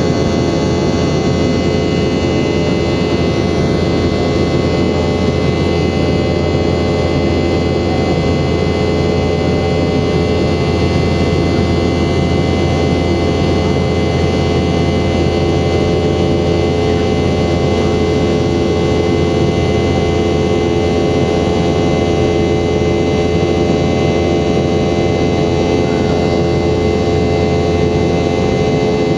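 Boeing 717-200's Rolls-Royce BR715 turbofan engines running at a steady power: an even rumble with several constant whining tones over it.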